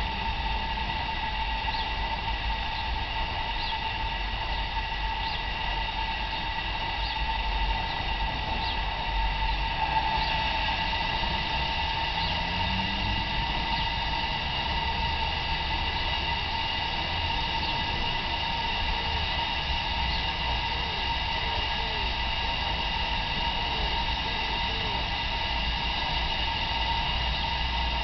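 Steady hiss of steam from a 5-inch gauge Sweet Pea live-steam locomotive standing in steam, with a few faint light ticks in the first half.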